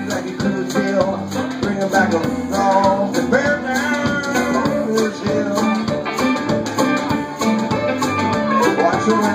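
Live blues band playing: harmonica wailing over picked banjo, electric bass and a drum kit, with a steady beat.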